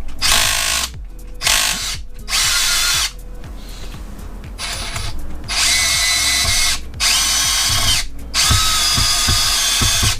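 Power driver with a 2.5 mm hex bit spinning in about half a dozen short runs, backing tight threadlocked screws out of an RC car's aluminium front bulkhead and chassis.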